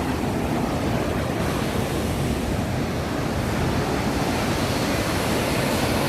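Steady rushing of water from Bow Falls, a wide waterfall on the Bow River, a constant loud wash with no letup.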